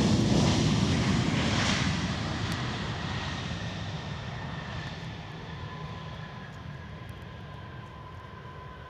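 Boeing 737-800 jet engines roaring as the airliner rolls out just after touchdown, loudest at the start and fading steadily as it slows and moves away. A steady high engine whine comes in after about five seconds.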